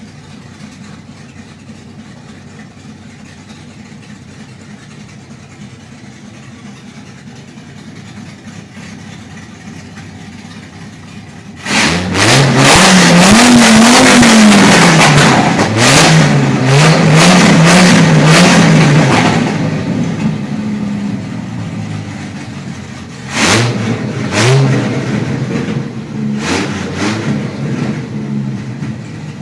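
Dodge Viper SRT-10 V10 idling steadily, then about twelve seconds in suddenly revved loud through headers and open electric exhaust cutouts, the pitch climbing and falling several times over about eight seconds. It then settles back to idle, with two more short, sharp blips of the throttle near the end.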